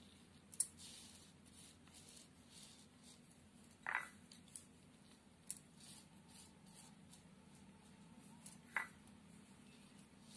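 Quiet hand sounds of sugar grains being sprinkled onto rolled-out wheat dough and spread with the fingers: a few faint ticks and rustles. Two short high chirps stand out, about four and nine seconds in.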